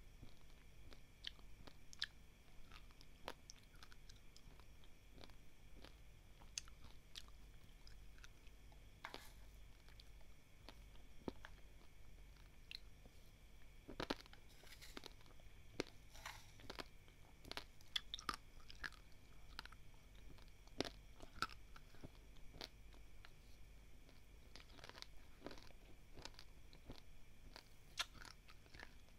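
Close, faint crunching of someone chewing dry, uncooked basmati rice grains, many small sharp cracks. About halfway through, a spoon scoops grains from the tray, giving a short run of denser clicks.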